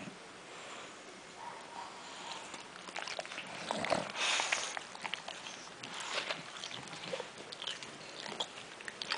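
A bulldog sniffing and snuffling close up, in short irregular puffs that start about three seconds in and are loudest around four seconds.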